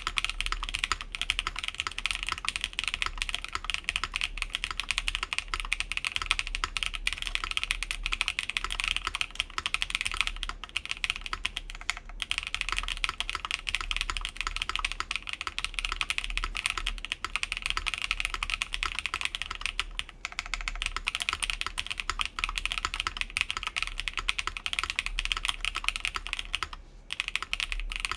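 Continuous fast typing on a mechanical keyboard with lubed Blue Cheese v2 linear switches, DSA keycaps and an aluminium plate in a gasket-mounted case with plate and case foam. A steady stream of keystroke clacks, with a brief pause near the end.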